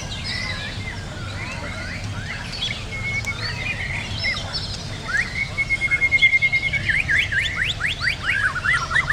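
Many songbirds chirping and singing at once, several overlapping. About five and a half seconds in a steady rapid trill starts, then near the end comes a quick run of rising notes.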